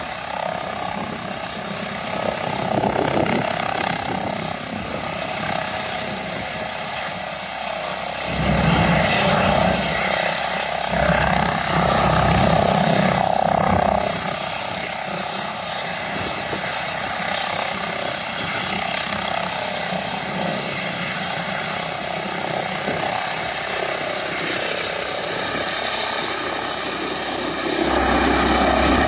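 Airbus H145 air ambulance helicopter lifting off and climbing away: steady rotor and twin-turbine noise with a steady high whine. Rotor downwash buffets the microphone in louder gusts for several seconds around the middle and again near the end.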